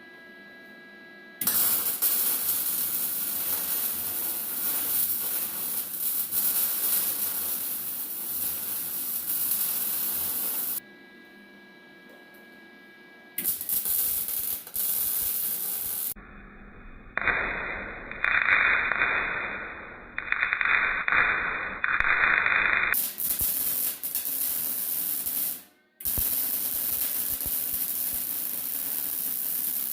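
Electric arc welding crackling and hissing as steel flat bar is welded onto a mini excavator's blade, in several runs of a few seconds each with short pauses between them.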